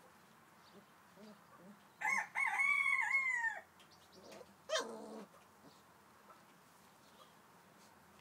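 A rooster crowing once, a call of about a second and a half made of several rising-and-falling notes, followed about a second later by a short falling squawk.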